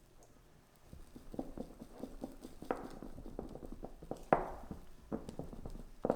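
Irregular light knocks and taps of kitchen utensils during baking work, about three to four a second, starting about a second in, with one sharper knock a little after the middle.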